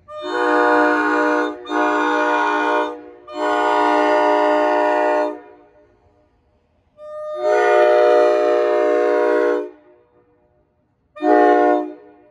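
NJ Transit commuter train's horn sounding for a grade crossing: four long blasts and then a short one near the end, each a steady chord of several notes.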